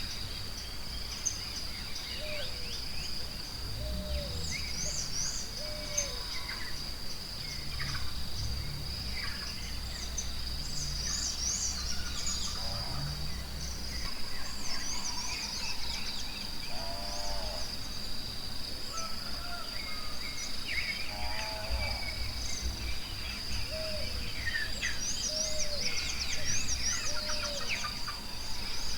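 Forest ambience: many birds chirping and calling, some in quick repeated notes, over a steady high-pitched insect drone. A low rumble sits underneath, with a few low drawn-out calls.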